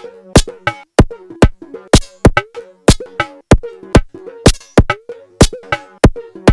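Korg Volca Drum playing a looping electronic drum pattern through a Bastl Kastle 2 FX Wizard effects unit. Sharp synthesized hits land about twice a second with quicker ones in between, mixed with short pitched tones that bend in pitch.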